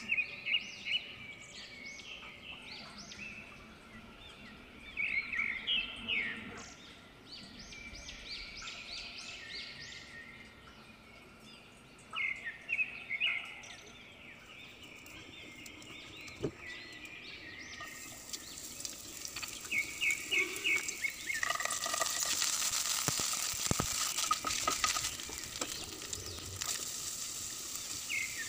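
Birds chirping in short clusters of quick calls. About two-thirds of the way through, a steady sizzle of sliced onion and garlic frying in oil in a pan starts suddenly and runs on under the chirps.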